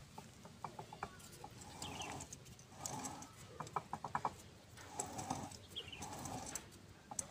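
Light metallic clicking from the ring gear of a Colt Diesel 120PS truck differential being rocked by hand against its new pinion to feel the backlash, which has been set with a little play. Repeated bird calls sound behind it.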